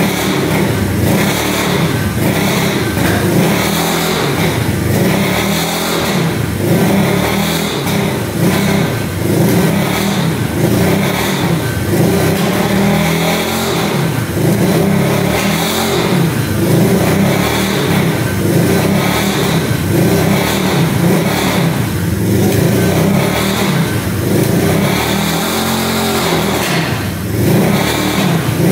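1974 Honda CB360's air-cooled parallel-twin engine running and being revved up and down unevenly, over and over.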